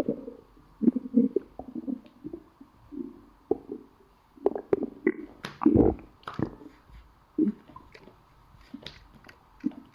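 A hungry stomach growling and gurgling in irregular bursts with small wet clicks, loudest about six seconds in.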